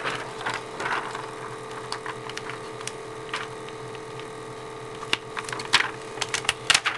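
Scattered small clicks and crinkles of vinyl decal pieces, their backing paper and transfer tape being handled and pressed, growing busier near the end, over a faint steady hum.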